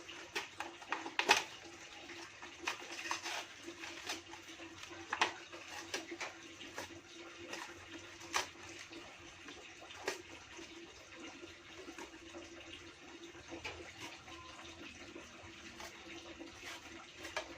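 Scattered sharp clicks and taps of handwork as a hole is pierced in a piece of homemade fishing tackle, over a steady rushing background noise.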